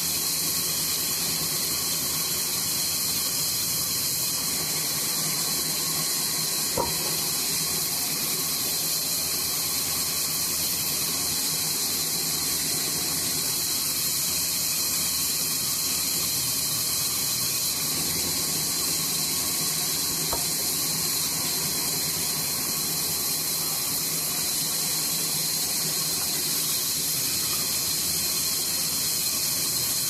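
Sawmill band saw running and ripping through a log, a steady high-pitched hiss that holds without a break. Two faint ticks come through, one about seven seconds in and one about twenty seconds in.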